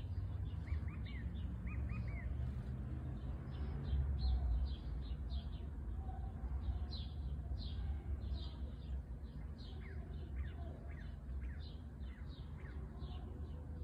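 Small birds chirping outdoors, many short quick calls one after another, about two or three a second, over a steady low background rumble.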